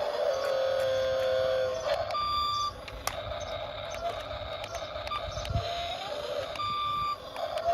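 A repeating sequence of electronic tones: a short high beep, a rising glide, then a longer lower tone, the pattern coming round about every four and a half seconds over a steady background noise.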